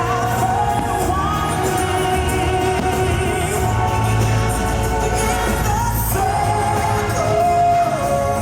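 Fireworks-show soundtrack played over loudspeakers: a pop-style song with a lead singer and a steady bass, with a few firework bangs under the music.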